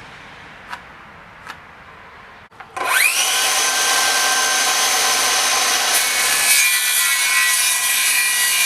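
Two light ticks, then an electric power saw spins up about three seconds in and runs with a steady whine, cutting a wooden framing plate to length.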